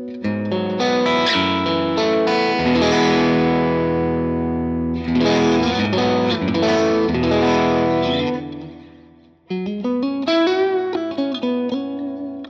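Electric guitar played through a NUX Ace of Tone dual overdrive pedal with a light overdrive: strummed chords ringing for about eight seconds and dying away, then single picked notes from about nine and a half seconds in.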